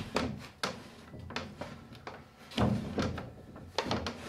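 Wooden drawer of a cedar chest sliding in and out on a new oak runner: wood rubbing on wood, with several knocks, the loudest about two and a half seconds in, and a quick run of clicks near the end.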